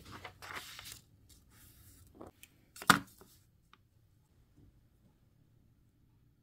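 Paper rustling and shifting on a cutting mat for about the first second, with softer rustles after. Then one sharp clack about three seconds in, as a stainless steel ruler is set down on the drawing.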